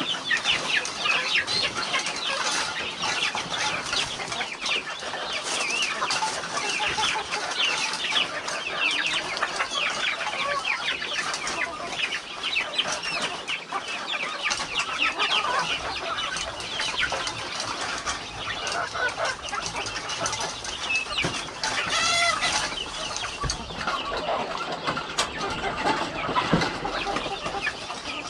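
A flock of village chickens clucking and calling, many voices overlapping without a break, with one longer call rising out of the flock about two-thirds of the way through.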